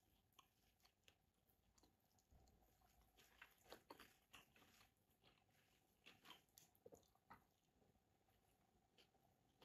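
Faint chewing of a mouthful of kottu roti, with scattered soft clicks and crunches, loudest about three to four seconds in and again around six to seven seconds, over near silence.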